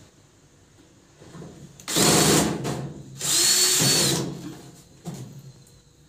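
Cordless drill-driver with a screwdriver bit running in two short bursts on screws in a washing machine's back panel, its motor whine rising as each burst starts and dropping as it stops.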